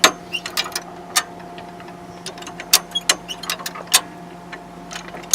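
Hi-Lift jack being worked: a run of sharp, irregular metallic clicks as its upper and lower climbing pins snap into the holes of the steel bar. Each click is the sign of a pin seating. A steady low hum runs underneath.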